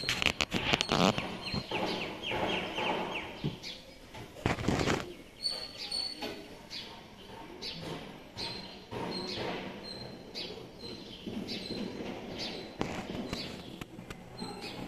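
Kittens play-fighting on a wooden floor: scuffling, scratching and knocks, loudest at the start and about four and a half seconds in. Small birds chirp briefly and repeatedly in the background.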